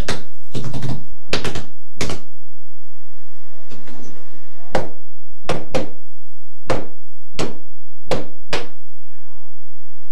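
About a dozen sharp knocks or thumps at uneven spacing, some in quick pairs, most likely blows on the wooden door the mask is taped to.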